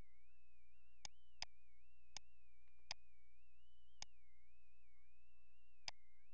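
Computer mouse clicking six times at uneven intervals, over a steady low electrical hum and a faint, wavering high-pitched whine.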